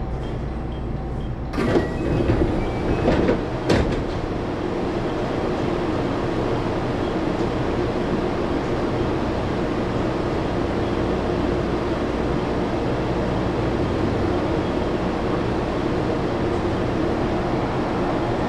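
Cab noise of a JR 223-series electric train: a few sharp clunks in the first four seconds, then a steady, even rumble with a faint hum.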